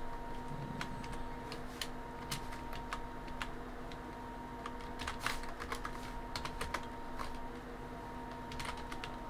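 Typing on a computer keyboard: irregular keystrokes in short runs with brief pauses between, over a faint steady hum.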